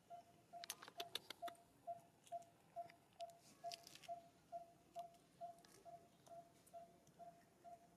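Faint, evenly repeating short note at one pitch, about two a second, with a few light scattered clicks about a second in and again around three to four seconds.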